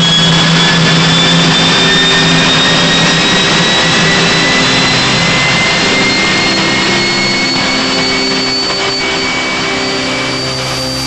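Jet turbine running loud, its high whine climbing slowly and steadily in pitch over a dense rushing noise, easing slightly near the end.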